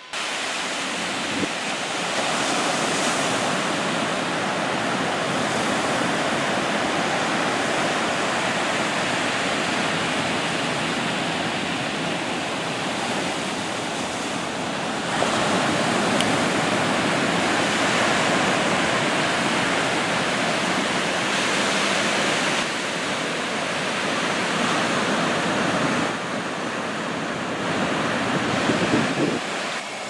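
Steady rushing noise of ocean surf mixed with wind on the microphone, stepping up and down in level abruptly several times.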